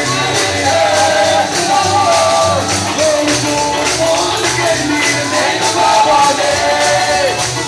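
Lively church music: a singing voice carries the melody over a steady beat, with a tambourine shaking along and a pulsing bass.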